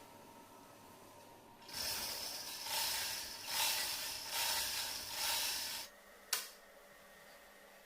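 Loud hiss lasting about four seconds, swelling and easing in several surges, followed a moment later by a single sharp click.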